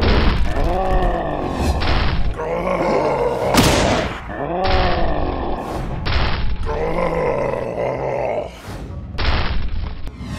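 Cartoon fight sound effects: deep, strained grunts and groans from a giant brute, cut in one after another every second or two, over background music and a low rumble.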